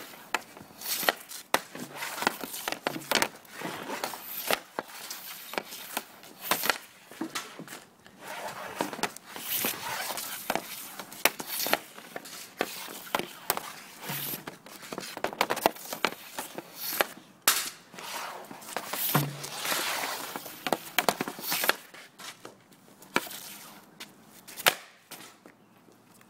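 Hockey sticks (Bauer TotalOne NXG and Vapor APX composite sticks) shooting pucks off a plastic shooting pad: a string of sharp cracks and slaps at irregular intervals, with pucks clattering and scraping in between. It goes quieter near the end.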